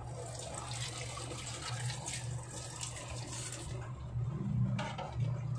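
Creamy pasta sauce with mushrooms bubbling in a frying pan on the stove, a crackly watery hiss that thins out after about three and a half seconds, over a steady low hum.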